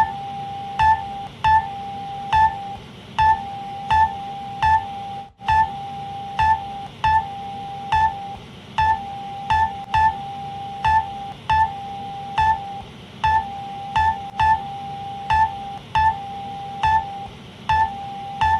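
Electronic emergency alert tone: a steady mid-pitched tone sounding in long stretches with short breaks, overlaid by sharp clicking beeps that repeat about once a second. It drops out briefly about five seconds in.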